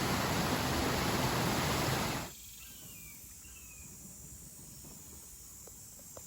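Loud steady rushing noise that cuts off abruptly a little over two seconds in. It gives way to quiet outdoor background with a few faint high chirps and a couple of soft clicks near the end.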